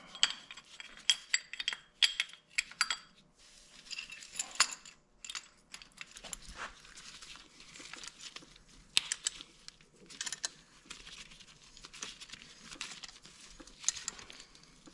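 Metal clinks and light rattles of a Honda Gold Wing GL1500 front brake caliper and a steel C-clamp being handled and fitted together, so the clamp can push the caliper pistons back. The clicks come close together in the first few seconds, then in scattered clusters.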